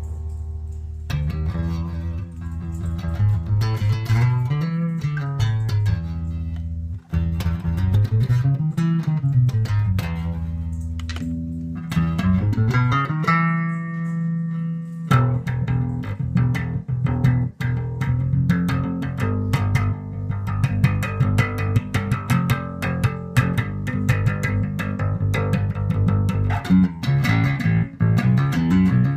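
Rickenbacker 4003 electric bass with horseshoe and toaster pickups, played through a Hartke LH1000 amp set flat. The first half is held notes with slides up and down the neck; from about halfway it turns to a busier line of many quick plucked notes.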